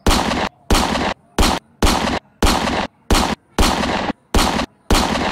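A string of gunshot sound effects for a toy revolver, about nine shots in five seconds at a slightly uneven pace. Each shot fades briefly, then is cut off into dead silence.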